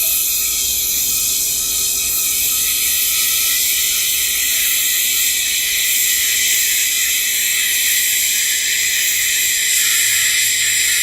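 TIG welding arc from an AHP AlphaTIG 200x held steadily through one long bead: an even, high hiss with a faint steady whine underneath.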